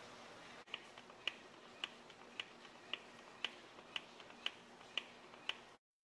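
Faint, evenly paced clicks of a hand-pumped grease gun, about two strokes a second, ten in all, starting about a second in, as grease is pumped into the track tension adjuster of a John Deere CT322 compact track loader to tighten its new rubber track.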